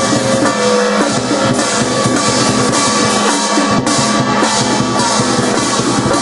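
Chinese dragon dance percussion: steady drumming with cymbals and gongs clashing over it, loud and dense throughout.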